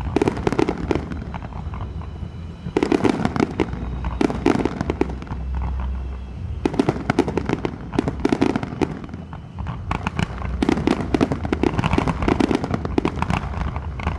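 Aerial fireworks crackling in rapid volleys of dense pops, four bursts with short lulls between them, over a steady low rumble.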